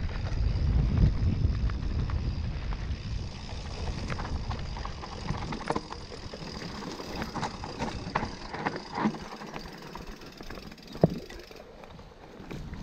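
A Specialized Turbo Levo SL e-mountain bike being ridden on a dirt trail: wind buffeting the microphone at first, then the rattle and clicks of the bike over rough ground, with one sharp knock near the end. A faint steady high whine runs beneath and stops shortly before the end.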